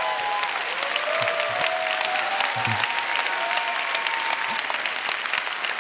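Large audience applauding, a dense, steady patter of many hands clapping, with a few voices cheering over it.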